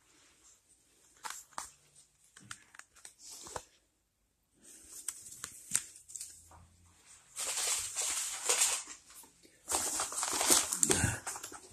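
Polystyrene packing peanuts and packaging rustling and crinkling as hands dig through a cardboard box, with scattered clicks and taps. The rustling gets louder and denser in the second half.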